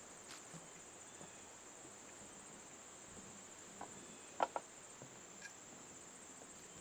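Steady, high-pitched chorus of insects, crickets or similar, droning without a break. A few sharp clicks stand out a little past halfway through.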